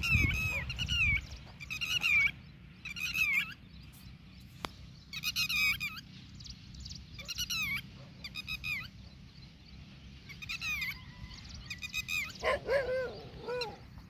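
Red-wattled lapwings giving loud, shrill alarm calls in repeated short bursts of rapid notes, mobbing dogs that are near their eggs. Near the end comes a lower, wavering cry.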